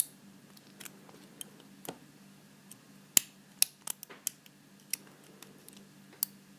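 Pin-tumbler lock being picked: a lock pick and tension wrench working the pins of a 7-pin Paclock PL410PRO padlock, giving about a dozen irregular sharp metallic clicks over a faint steady hum.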